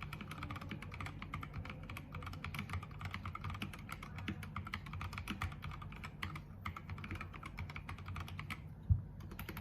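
Fast, steady typing on an MK66 65% mechanical keyboard with KTT brown tactile switches: a dense run of key clacks with a couple of brief pauses. One louder, deeper thud comes near the end.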